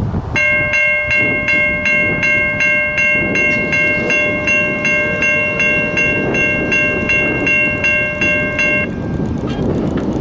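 A bell ringing about two and a half strokes a second, then stopping abruptly near the end, over the rushing rumble of a passing Amtrak Piedmont passenger train.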